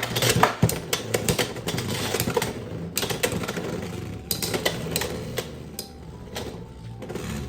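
Beyblade X spinning tops whirring and clashing in battle: rapid, irregular clicks and knocks that grow quieter as the tops slow down.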